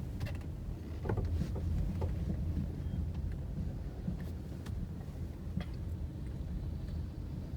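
Low, steady rumble of a car driving slowly, heard from inside the cabin, with a few light knocks and rattles.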